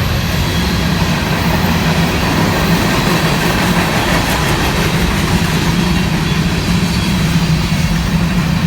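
Diesel freight train passing close by: a steady heavy locomotive engine drone with wheel-on-rail noise, from a consist that includes an old GE Dash 8 locomotive.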